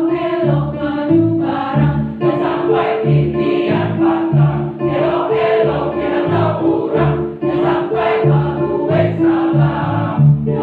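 Choir singing a Minangkabau song in several parts, with sustained upper voices over a low part that moves in short rhythmic notes.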